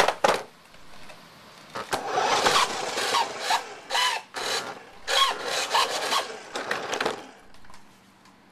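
Toy remote-control car's small electric motor whirring in repeated bursts, its pitch rising and falling as the throttle is worked, after a couple of sharp knocks at the start.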